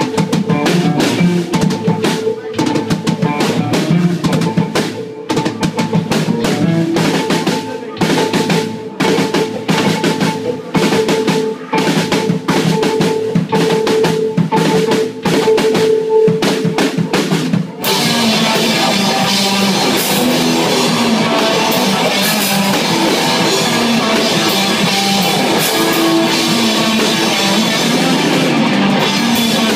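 Live rock band: a drum kit plays a busy beat over a held, droning note, then about 18 seconds in the full band crashes in with loud distorted guitars.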